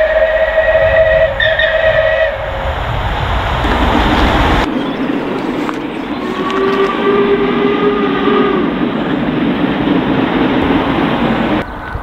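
Steam locomotive whistles: one whistle sounds over a heavy low rumble from the working locomotive, breaking briefly about a second in and stopping after about two and a half seconds. About halfway through a different steam whistle gives one long note of about three seconds, its pitch rising slightly and then falling back.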